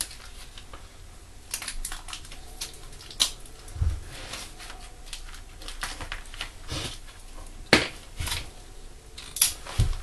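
Sticky tape being pulled off the roll and torn, with newspaper crackling as strips of tape are pressed onto it on the floor: a scattering of short rasps and crackles, a couple of dull thumps and a sharp click a little before the end.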